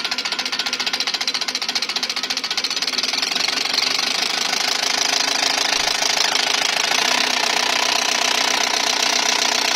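Four-element inline diesel injection pump for an Ursus C-360 tractor running on an injection-pump test bench, with a fast, even mechanical knocking. About three seconds in, the knocking blurs into a denser, slightly louder run.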